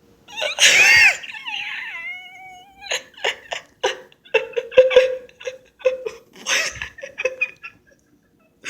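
A pet bird's loud screech, then long, gliding whistled tones, followed by a choppy run of short bursts of laughter.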